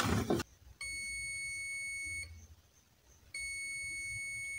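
Multimeter continuity buzzer sounding a steady high beep twice, the first about a second and a half long, the second longer: the meter is reading a short between the positive and negative lines.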